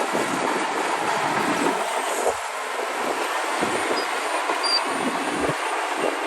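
Heavy earthmoving machinery running: a steady, noisy mechanical din with no breaks.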